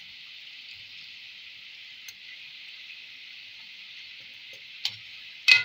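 Balushahi dough rounds deep-frying on a low flame: a steady sizzle of bubbling fat. Near the end there are two sharp metal clicks from the wire skimmer knocking against the kadai.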